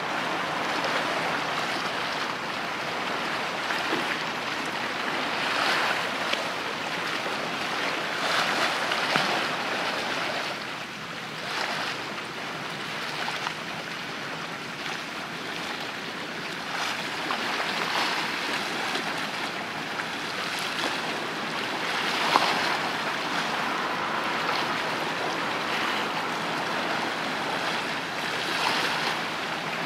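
Small waves washing against the shore, swelling every few seconds, with a faint steady low hum underneath.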